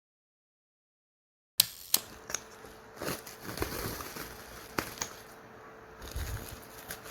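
Dead silence for about a second and a half, then quiet room sound with scattered sharp clicks and taps of objects being handled.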